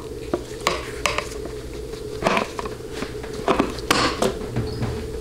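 Light metallic clicks and clatter as a stamped-steel transmission filter is set and pressed into place on a 700R4 valve body, with a steady hum underneath.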